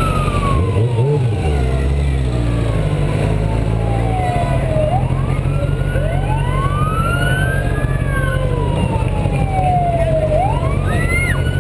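Emergency-vehicle sirens wailing, two or more slow rising-and-falling tones overlapping each other, over a steady low engine rumble.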